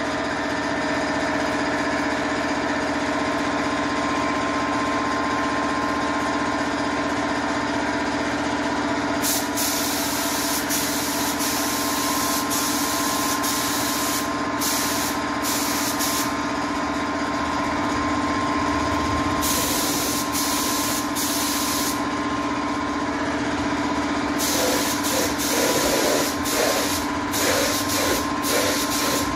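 Gravity-feed spray gun hissing in bursts of one to several seconds as the trigger is pulled and released, spraying the MDF cabinet. Underneath, a steady motor hum with a constant tone, the air compressor running.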